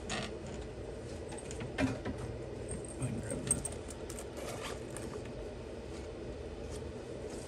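Faint off-camera handling noises, a few light scattered clicks and rustles over a steady low room hum.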